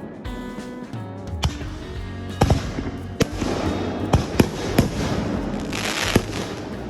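Aerial fireworks bursting, several sharp bangs a second or so apart, with a brief crackling hiss near the end, over background music.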